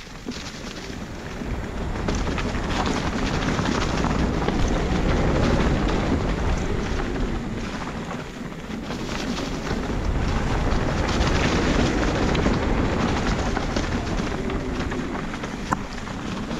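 Mountain bike riding a rough trail: wind buffeting the microphone over tyre noise and small clicks and rattles, swelling and easing with speed.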